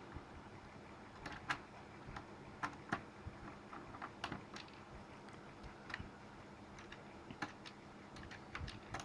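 Faint, irregular clicks and taps of a screwdriver working on the screws and plastic casing of a Samsung SQ-1000 electronic typewriter as its keyboard is being opened.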